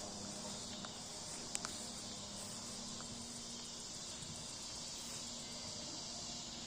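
Steady evening chorus of cicadas singing together as a continuous high hiss-like drone. Two light clicks about a second and a half in.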